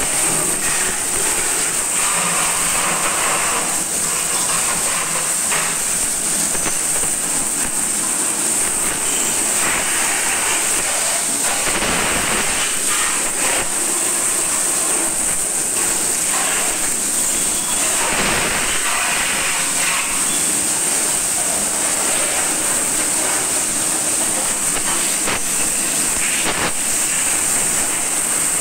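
High-pressure water jet from a pressure washer, hissing steadily as it sprays a motorcycle, with water spattering off the bodywork. The splash swells and fades as the jet moves over different parts of the bike.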